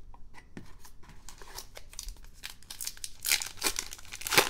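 A trading-card pack wrapper being torn open and crinkled by hand: a run of crackles and rips, busier and louder in the second half, with the sharpest rip near the end.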